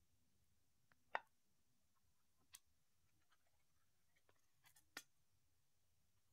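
Near silence broken by a handful of light clicks and taps, the loudest about a second in and a cluster near the end, from a small metal can of wet cat food being handled while a cat eats from it.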